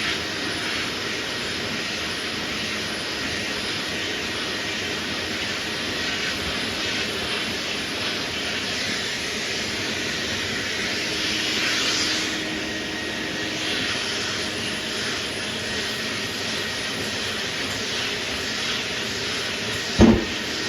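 Sandpaper on a sanding block scraping steadily back and forth over primered sheet metal, flattening high spots in filler under a guide coat. Near the end comes a single sharp thump.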